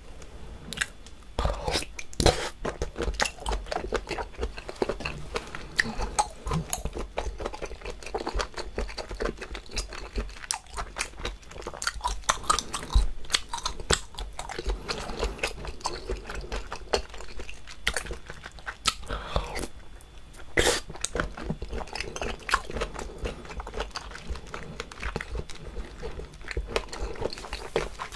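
Close-miked wet chewing and biting of a boiled squid and shrimp skewer dipped in red pepper sauce: a dense run of irregular smacking, squelching mouth clicks.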